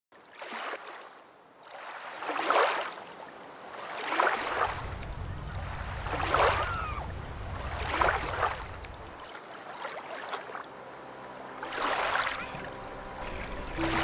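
Lake water washing in regular swells, one about every two seconds. A low motorboat engine hum runs under it through the middle. Music begins right at the end.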